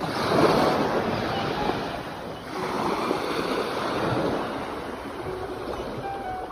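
Sea waves surging and washing in, two swells about two seconds apart, the first the loudest, then easing off.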